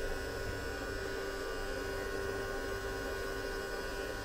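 Kid Odyssey Turbo Bubbles Whale Voyager bubble machine running at normal speed: a steady electric hum and whine from its small fan and wand motor.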